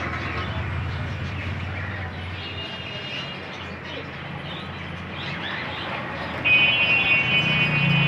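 Steady low rumble of traffic under general street noise, with faint chirps from a cage of Java finches. About six and a half seconds in, a loud steady high-pitched tone starts and holds.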